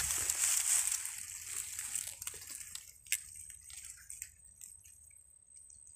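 Dense swamp grass rustling and crackling as it is pushed aside by hand or foot, loudest at first and dying away within about two seconds to faint scattered crackles.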